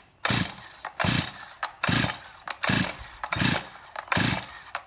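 Stihl MS261 two-stroke chainsaw being pulled over by its recoil starter rope about six times in quick succession, one pull every second or less. The engine turns over with each pull but does not fire: the saw will not start.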